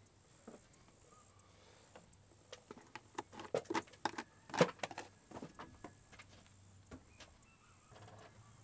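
Handling of a plastic oil jug and a shop towel: a string of light knocks and clicks, the loudest about four and a half seconds in.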